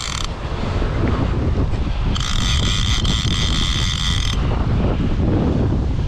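Wind buffeting the microphone with a dense low rumble throughout. About two seconds in, a steady high-pitched tone starts, holds for about two seconds, then cuts off abruptly.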